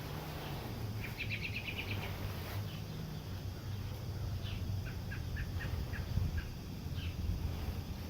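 Small birds chirping: a quick trill of about eight high chirps about a second in, then a run of separate chirps in the middle, over a steady low hum.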